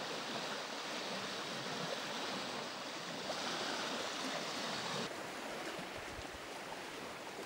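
Small waves washing in over a sandy beach in a steady wash of surf. About five seconds in it turns a little quieter and duller.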